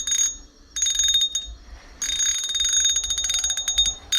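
Fishing reel drag clicking rapidly as a big lake trout pulls line off against it. It comes in two short bursts, then a steady run of about two seconds.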